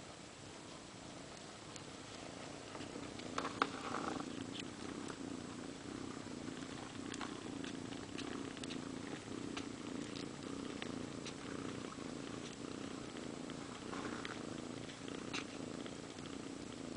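Domestic cat purring steadily, with scattered small clicks and a brief louder sound about three and a half seconds in.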